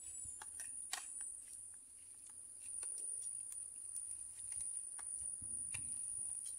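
Insects chirring in a steady, high, thin tone, with scattered light clicks of spoons and forks against plates as people eat.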